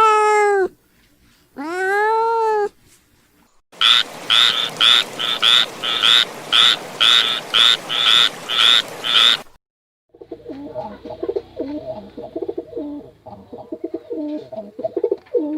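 A run of animal calls: two drawn-out, rising-then-falling meows, then a steady series of about a dozen short pulsed calls, roughly two a second, over a background hiss, then after a brief pause a lower, jumbled patter of calls.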